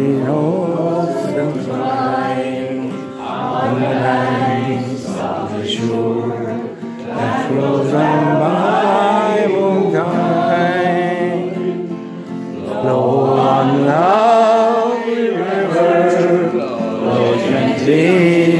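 A group of people singing a song together, with long held notes.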